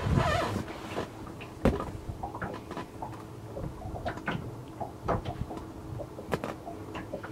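Irregular knocks and clicks of a freshly caught mackerel and its multi-hook line being handled in a small boat, with a louder knock about a second and a half in, over a faint steady hum.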